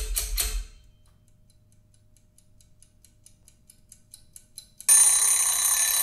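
Movie sound effects played through a home-theater speaker system: the monster's rapid, regular clicking stops less than a second in. Near silence follows, with faint ticks that quicken, until a sudden loud, high-pitched ringing screech cuts in about five seconds in.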